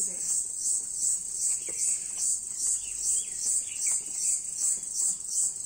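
Insect chirping in a steady, high-pitched pulse, about three pulses a second.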